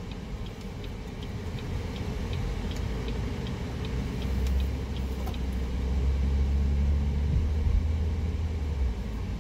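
Car cabin noise while driving: engine and road rumble that swells louder about four seconds in. For the first few seconds a quick, even ticking runs over it, about three ticks a second, which fits the turn-signal indicator.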